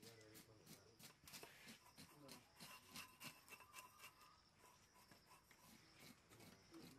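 Faint scraping of a large knife blade over a fish's scales, a string of soft scratchy clicks as the scales come off, with faint voices in the background.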